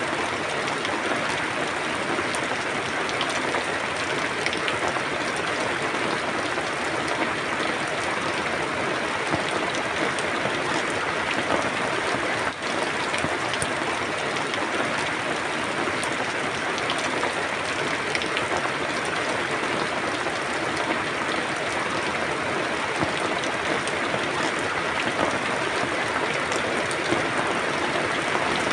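Steady rain falling: a dense, even hiss with scattered individual drop ticks.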